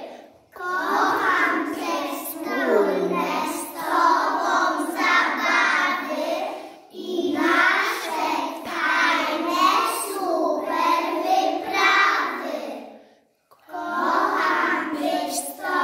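A group of young children singing together in unison, pausing briefly between lines about half a second in, near seven seconds and near thirteen seconds.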